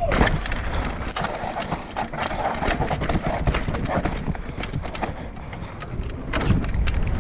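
Mountain bike descending over rock, with irregular clattering knocks of the tyres and frame over a steady low rumble.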